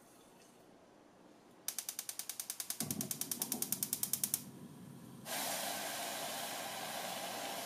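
Gas stove burner being lit: the igniter clicks rapidly, about ten a second, for nearly three seconds while the flame catches with a low rumble. About five seconds in, a steady hiss sets in from the saucepan of sugar and water as it heats.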